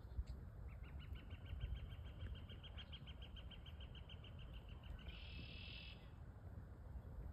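A bird calling: a rapid, even run of short high notes, about seven a second for some four seconds, ending in a brief harsh rasp.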